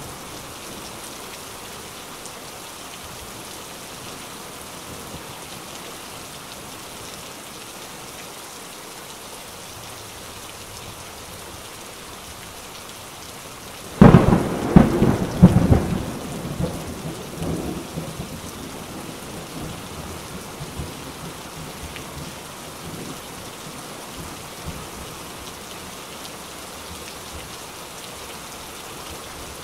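Steady rain falling, with a sudden loud thunderclap about halfway through that crackles for a couple of seconds and then rumbles away over several more.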